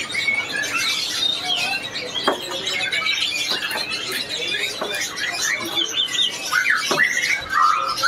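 Many small caged songbirds chirping and twittering at once, a dense overlapping chatter of short high calls, with two soft knocks, one about two seconds in and one near the end.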